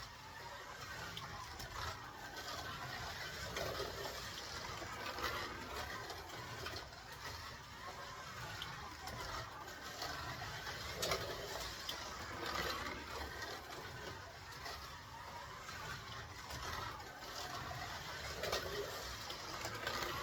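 Scalextric slot car running laps on a plastic track: its small electric motor whirring and the tyres and guide rattling in the slot, swelling louder every few seconds as the car passes close by.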